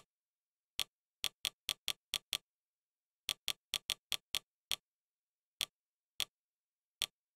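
Sharp menu-navigation clicks from the streaming device's on-screen interface, one for each step the selection moves along a row of tiles. There are about eighteen clicks in quick runs of several, with short pauses between the runs.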